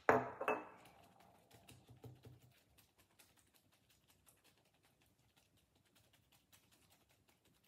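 Gloved hands patting and pressing Worcestershire sauce into raw ribeye steaks on a wooden cutting board: a fast run of soft, faint taps that thins out toward the end. It opens with a louder knock as the glass sauce bottle is set down on the counter.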